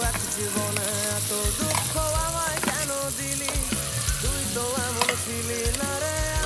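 Food sizzling as it fries in hot oil in a pan, under background music with a wavering melody.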